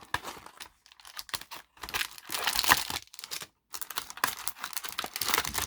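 Crinkly plastic or foil packaging being handled and torn open, a run of irregular rustles and crackles as the next Yu-Gi-Oh! card product is opened.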